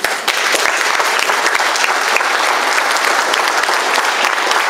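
Audience applauding: dense, steady clapping that swells up within the first half second and carries on evenly.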